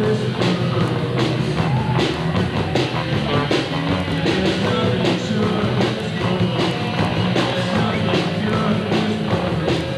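Live rock band playing: electric guitars and a CB700 drum kit keeping a steady beat of about two strikes a second.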